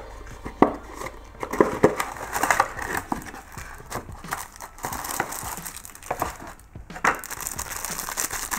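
Cardboard box parts handled by hands, with a few sharp taps in the first couple of seconds, then the clear plastic wrapping around a phone case crinkling as it is lifted and handled.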